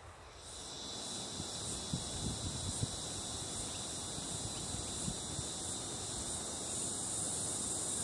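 A steady, high-pitched chorus of insects chirring, coming in about half a second in and holding on evenly.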